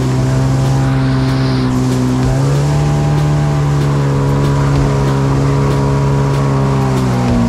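Stand-up jet ski engine running hard at steady high revs, its pitch stepping up a couple of seconds in and dropping back near the end, with rushing water and spray over it.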